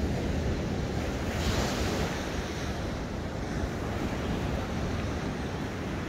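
Sea waves breaking and washing up the beach, with a wave's hiss swelling about a second and a half in and then fading. Wind rumbles on the microphone underneath.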